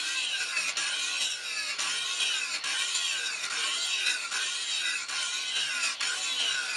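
Angle grinder with an abrasive disc grinding the bevel of a steel sword blade. It is a continuous high grinding whine whose pitch repeatedly dips and rises as the disc is worked along the edge.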